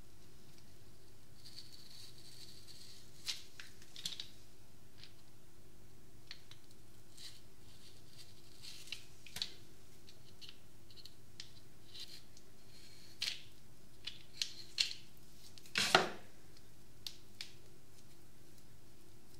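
Y-shaped vegetable peeler scraping strips of skin off a kiwi fruit: scattered short rasping strokes and clicks, the loudest about three-quarters through, over a faint steady hum.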